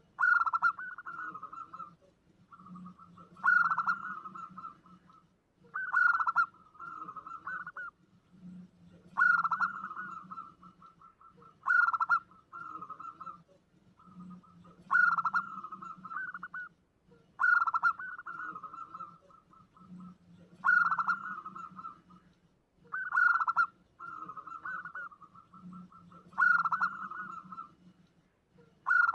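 Zebra dove (perkutut) cooing over and over, about ten phrases, each a loud opening note followed by a quick rattling run of short coos, roughly every 2.5 to 3 seconds. This is a perkutut lure call, used to draw wild zebra doves in.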